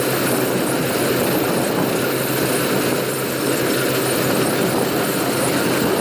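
Yanmar AW70V rice combine harvester running steadily, its 4TNV98 water-cooled four-cylinder diesel engine holding a constant drone.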